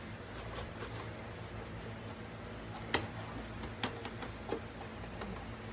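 A few light clicks and taps, the sharpest about three seconds in, as stiff scooter wiring and connectors are handled and pushed back into place, over a steady low hum.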